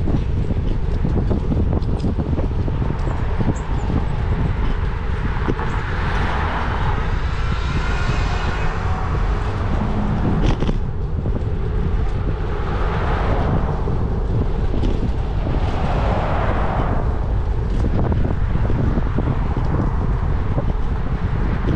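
Wind buffeting the camera microphone on a moving bicycle, a steady heavy rumble, with road traffic passing three times, each pass swelling and fading over a second or two. A single sharp click about halfway through.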